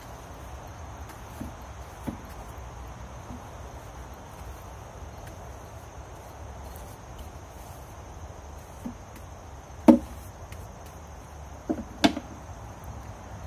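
Wilton oscillating spindle sander running with a steady low hum while a plastic buttplate is shaped on it, with two sharp knocks about ten and twelve seconds in.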